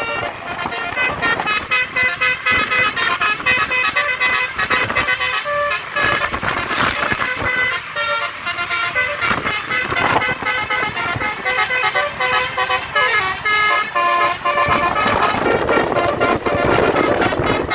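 Basuri telolet air horn on an Eti Trans bus playing a fast melody of short notes stepping up and down, over a rushing noise that grows louder near the end.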